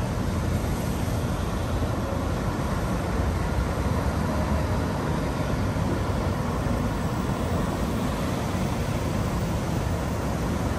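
Steady city traffic noise: an even, low rumble and hiss of vehicles with no separate events standing out.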